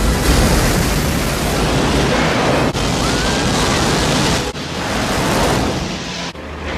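Film sound effect of a rocket pack's thrust: a dense, steady rushing roar, broken by sharp cuts about two and a half, four and a half and six seconds in.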